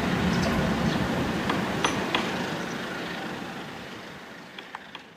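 Passenger train rolling away along the tracks, its rumble fading steadily, with a few sharp clicks partway through and again near the end.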